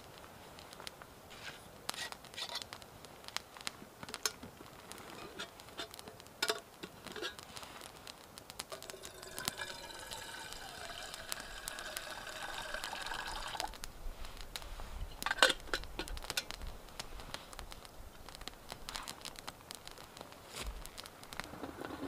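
Water poured from a steel vacuum flask for about five seconds, starting about nine seconds in, with a pitch that shifts as it flows. Campfire crackling and sharp clicks run around it, the loudest click just after the pour ends.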